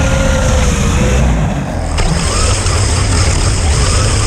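Electric motor of a radio-controlled truck driving through snow: a loud, dense rumble with faint whines that rise and fall with the throttle. The sound changes abruptly about two seconds in.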